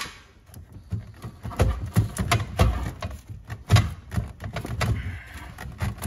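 Irregular clicks, knocks and light thuds of hands working at plastic and metal parts inside a hot tub's equipment bay, around the control box.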